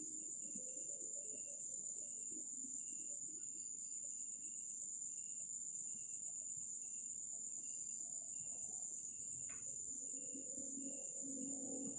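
Crickets trilling in a steady, high, unbroken stream, with a second insect chirping lower in short regular pulses a little more than once a second.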